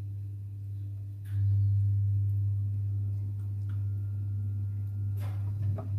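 Steady low hum that grows louder about a second in, with a few faint light taps and a knock near the end.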